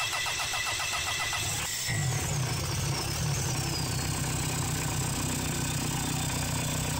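Mitsubishi 4M40 2.8 L turbo-diesel cranking on its starter with an even rhythm, catching about two seconds in and settling into a steady idle, with a brief falling whine just after it fires. It is the first start after its fuel system was bled of air and its glow plugs preheated, running on an open straight-pipe exhaust.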